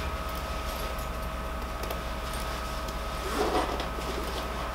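Jacket fabric rustling as its front is fastened by hand, with small clicks, and a louder rustle about three and a half seconds in, over a steady electrical hum.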